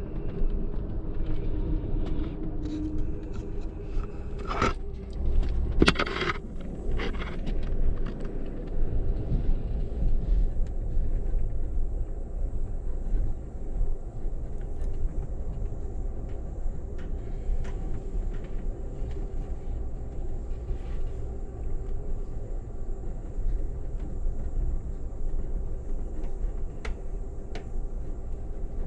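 Steady low rumble of a moving Amtrak passenger train heard from inside the coach, with a few sharp knocks in the first several seconds.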